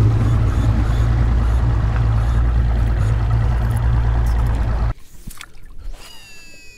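Boat under way: a steady motor drone with rushing water and wind noise, cutting off abruptly about five seconds in. A faint, high, falling call follows near the end.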